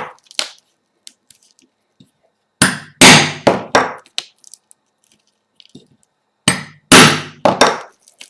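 Hammer striking a steel hollow hole punch, driving it through velcro backed by cardboard. The blows come in two quick runs of about four each, each blow a sharp metallic knock with a short ring.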